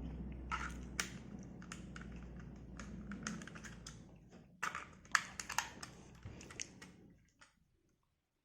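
Scattered light plastic clicks and taps as a small plastic weather station alarm clock is handled, over a low steady hum that fades out about six seconds in; the last second or so is near silent.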